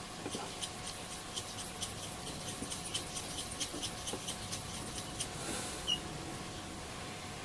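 Rapid light ticking and scraping, about three or four ticks a second, as a fine paint brush is stirred in a small pot of paint; it stops about five seconds in, and a single short squeak follows.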